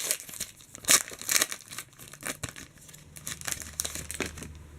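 A trading card pack's wrapper being torn open and crinkled: quick crackly bursts, densest in the first two seconds and thinning out after that.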